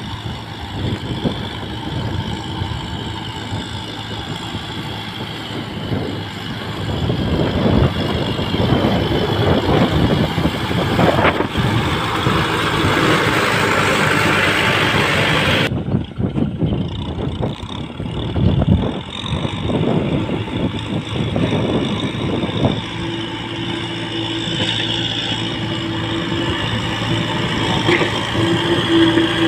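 A Kubota tractor's diesel engine runs hard under load, with its wheels churning through flooded, deep mud and water. The sound changes abruptly about halfway through, and a steady engine tone holds in the last few seconds.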